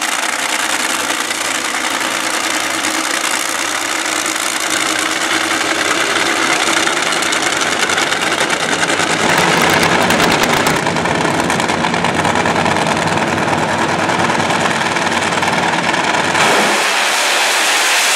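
Nitromethane-burning NHRA Funny Car engines, supercharged V8s, running loud at the starting line. There is a stretch of rapid crackling about ten seconds in, and the sound changes abruptly near the end.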